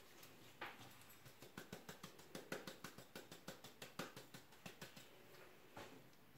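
Faint, rapid popping and crackling of meat strips frying in oil in a pan.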